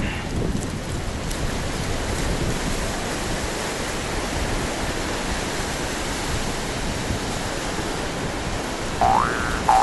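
Ocean surf washing steadily on a beach, a continuous hiss of breaking waves. Near the end a short pitched sound starts sweeping upward, twice in quick succession.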